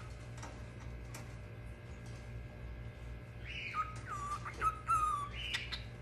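Lutino cockatiel whistling its song: a run of short whistled notes that starts a little past halfway through.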